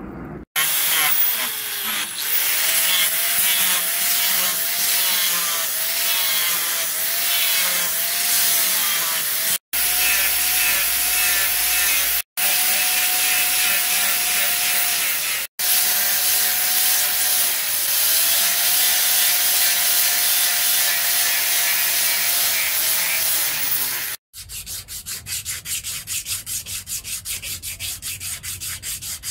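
Angle grinder with a grinding disc running under load against steel, a steady whine whose pitch wavers as the pressure changes, broken by three short silences. About 24 seconds in it gives way to quieter, quick back-and-forth rubbing strokes: the wooden axe handle being sanded by hand.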